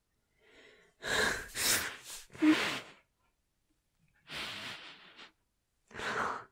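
A woman breathing in several heavy, breathy bursts: a cluster of sharp breaths about a second in, then two more near the middle and the end.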